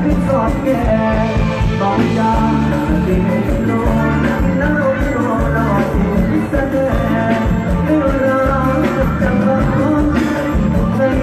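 Live band music with a steady driving beat: bass and drums under a melodic lead line, played through the stage sound system.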